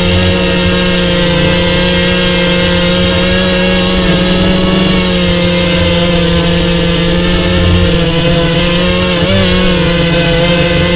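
Parrot Bebop 2 quadcopter's electric motors and propellers running steadily with a loud whine. The pitch shifts slightly about halfway through and again near the end.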